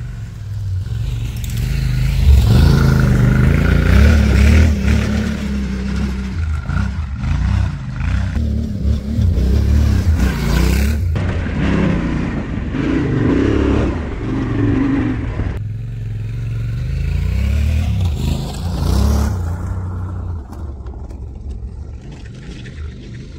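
Off-road vehicle engine revving up and easing off again and again while driving over a dirt track. It grows louder about two seconds in and fades near the end.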